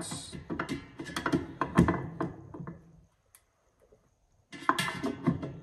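Steel fixed basin spanner clicking and knocking against a tap's back nut and the stainless steel basin as it is fitted and turned. The clicks come in two bursts with a short quiet pause between them.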